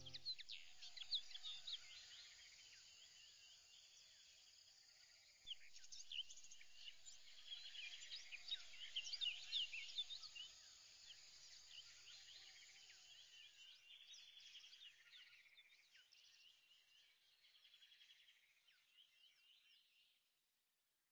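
Faint birdsong: many birds chirping in quick, short calls, busiest in the middle and thinning out until it fades away near the end.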